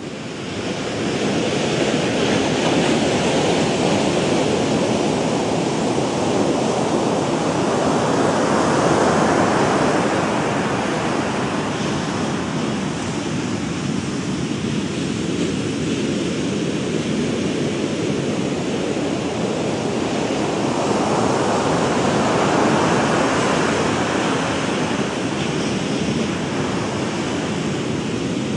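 Ocean waves breaking: a continuous rushing noise of surf that swells louder twice, about eight seconds in and again about twenty-one seconds in.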